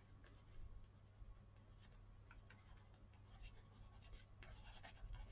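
Faint scratching of handwriting on paper: a pen stroking out a word in short, irregular strokes, a little busier near the end.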